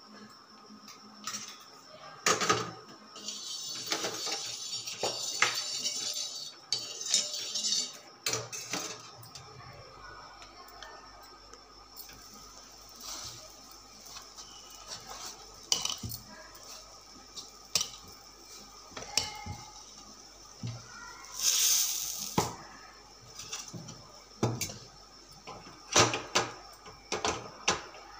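Kitchen utensils clattering: irregular metal clinks and knocks of steel vessels, spoons and an iron pan on a gas stove, with a few short stretches of hiss.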